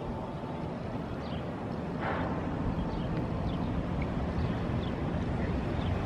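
Steady outdoor ambience of wind and traffic rumble. It gets a little louder about two seconds in, and faint short high chirps come roughly once a second.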